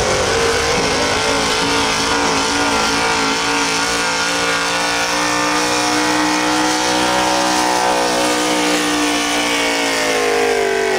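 Small-block gas V8 of a GMC Sierra pickup running at high revs under full load while pulling a weight-transfer sled. The engine's pitch sags through the middle of the pull as the sled's load builds, then climbs again near the end.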